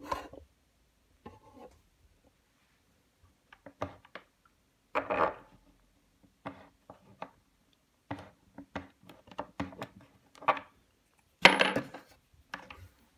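Irregular knocks, clicks and short scrapes as a mitre saw's base and metal bolts are handled on a wooden workbench top while the bolts are lined up with the mounting holes; the loudest knock comes near the end.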